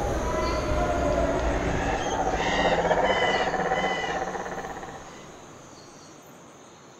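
Ambience of frogs and insects calling, with a run of short repeated chirps a few seconds in, fading out over the last part.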